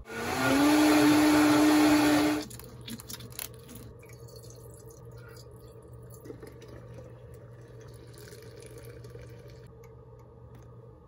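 Kitchen blender motor spinning up and running loudly for about two and a half seconds, then switching off abruptly. A faint steady hum remains after it.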